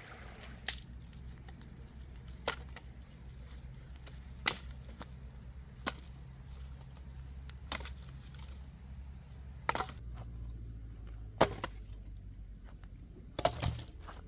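A knife chopping on a wooden board: single, separate strokes about every one and a half to two seconds, over a steady low rumble.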